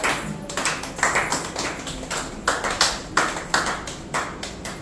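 A small group of people clapping their hands in a loose rhythm, about three claps a second, tailing off near the end.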